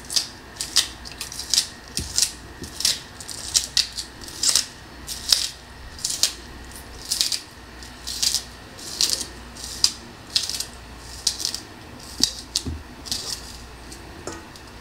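Fresh scallion (green onion) stalks being cut by hand, a run of short crisp snips at about two or three a second.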